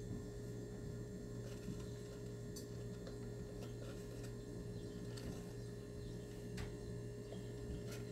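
A steady low electrical hum, with a few faint ticks and clicks scattered through.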